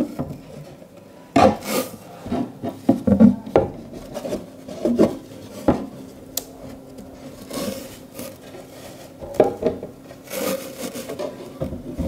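Particleboard cabinet door panel being worked by hand into its frame: irregular wooden scraping and rubbing, with scattered light knocks as the board bumps against the cabinet.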